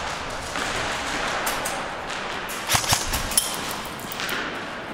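Airsoft guns firing: a few sharp snaps, two close together nearly three seconds in and another just after, over a steady background hiss.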